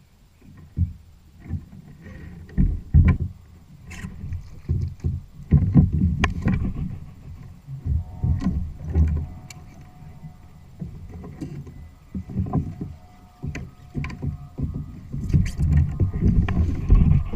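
Irregular knocks, thumps and handling noise on a fishing kayak's hull.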